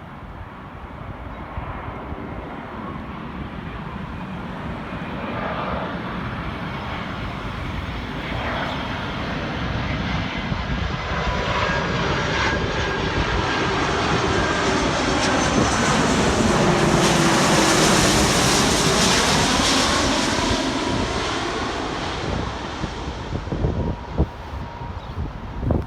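Jet airliner on approach passing the observer. The engine noise swells steadily to its loudest about two-thirds of the way through, with tones sweeping in pitch as it goes by, then eases off near the end.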